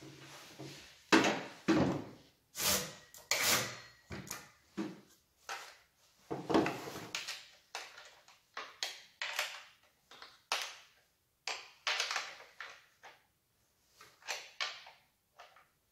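Handling noises from the chainsaw, its parts and packaging: a string of short, irregular scrapes, knocks and rustles, loudest about a second in and again at six to seven seconds.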